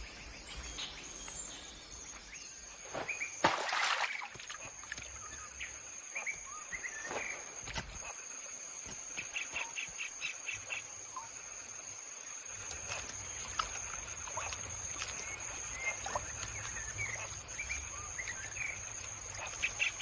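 Tropical forest ambience: a steady high-pitched insect drone with scattered bird chirps and short runs of quick pulsed notes. There is one loud short burst about three and a half seconds in.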